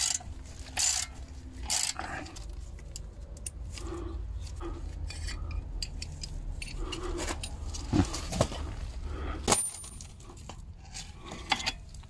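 Ratchet with a 7 mm hex socket clicking in short strokes about once a second as it backs out a rear brake caliper bolt, then metal clinks and scrapes of the loosened bolt and pliers being handled, with a few sharp clinks near the end.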